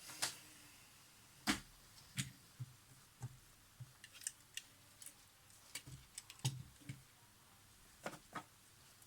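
Irregular light clicks and knocks of small hard objects being handled, about a dozen spread over several seconds with short gaps between them.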